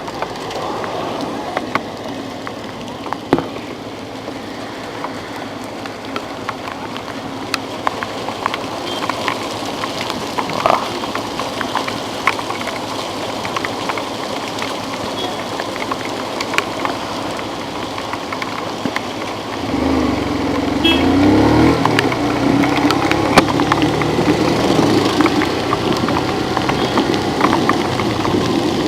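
Steady rain hiss with scattered sharp drop ticks. About twenty seconds in, a vehicle engine's hum comes in, rising and falling in pitch, and the whole sound gets louder.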